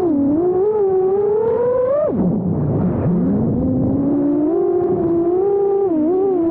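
5-inch FPV freestyle quadcopter motors on a 6S battery, whining with pitch rising and falling as the throttle changes. About two seconds in the pitch drops sharply, a throttle chop, then climbs back up.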